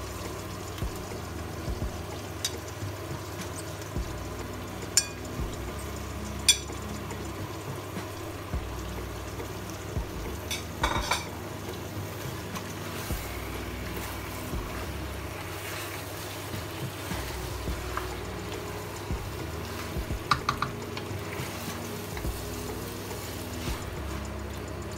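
Wooden spoon stirring chunks of beef through onions and tomato sauce in a stainless steel pressure-cooker pot, with soft scraping and a few sharp knocks of the spoon against the pot, over a steady low hum.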